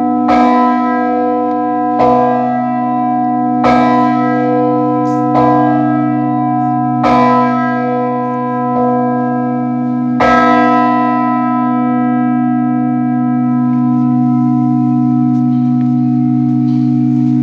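A large cast bronze church tenor bell, about 42 cwt, swinging and struck by its clapper about every 1.7 seconds, each blow ringing out over a deep, sustained hum. The last blow comes about ten seconds in, and after that the bell goes on ringing without being struck again.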